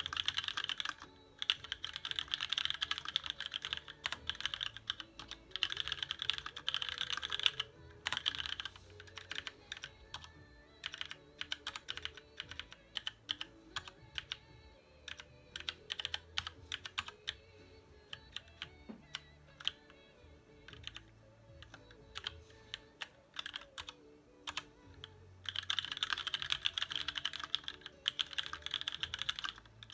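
Typing on a TX1800 custom mechanical keyboard with an aluminium case and plate, lubed Cherry MX Black linear switches and thick ABS Cherry-profile keycaps. Fast dense runs of keystrokes fill roughly the first eight seconds and come again near the end, with slower scattered keystrokes in between.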